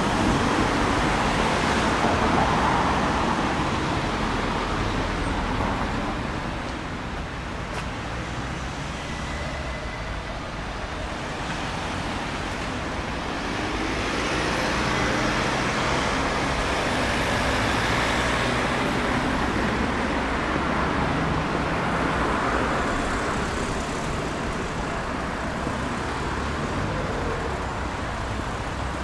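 Road traffic: cars passing, a steady noise that swells and fades as vehicles go by, louder over the first few seconds and again in the middle.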